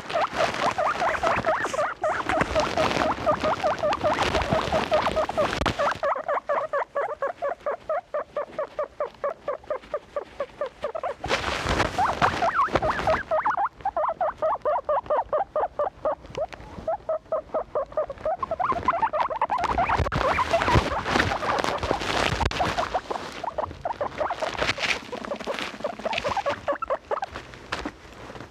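Guinea pigs squeaking in a long run of short, rapidly repeated squeaks, about five a second, with stretches of rustling in between.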